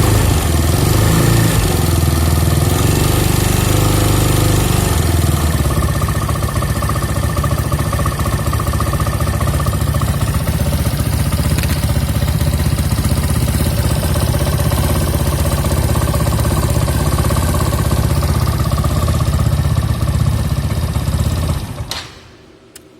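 Scooter engine idling, with an abnormal noise that the owner puts down to the cooling fan and that began after the CVT drive was replaced. The engine is shut off about 22 seconds in and dies away quickly, followed by a faint click.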